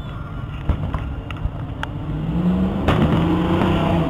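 Fireworks display: a few scattered bangs and pops from shells, the loudest about three seconds in. A low droning tone comes in about halfway through and holds.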